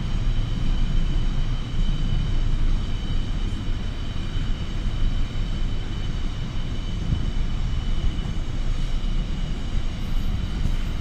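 Double-stack container freight train rolling past, a steady rumble of wagons on the rails, with a steady high-pitched whine over it.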